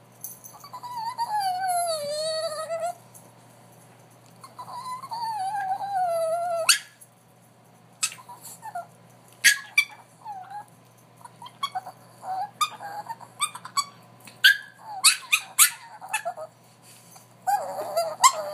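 A dog making two long, wavering, whining howls, each sliding down in pitch, followed by a run of short, sharp yips and clicks.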